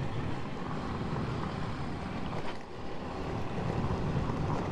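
Motorcycle riding along a dirt road, its engine running under a steady rush of wind noise on the microphone.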